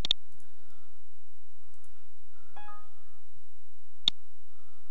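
Two sharp computer mouse clicks, one right at the start and one about four seconds in, while G-code is loaded in the control software. A brief faint tone with several pitches sounds about two and a half seconds in.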